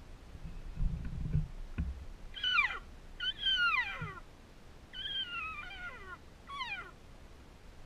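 Four falling, nasal elk cow calls (mews), each under a second long and sliding down in pitch, the second and third the longest. Low thumps and rustling come just before them.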